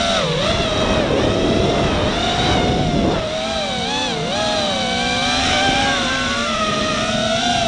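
Walkera F210 FPV quadcopter's brushless motors and HQ propellers whining, the pitch swinging up and down with throttle during freestyle flying over a rushing wind noise. The whine drops sharply and recovers about a third of a second in, again around three seconds and around four seconds.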